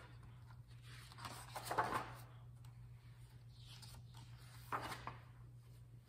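Pages of a hardcover picture book turned by hand: a papery swish about two seconds in and a shorter one near five seconds, over a faint steady low hum.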